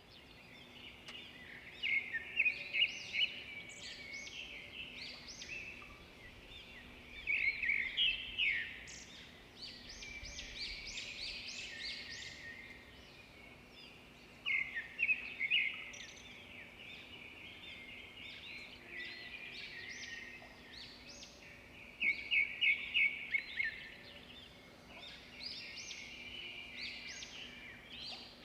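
Several small birds chirping and twittering together, with louder bursts of rapid chirps every several seconds. A faint steady hum runs beneath.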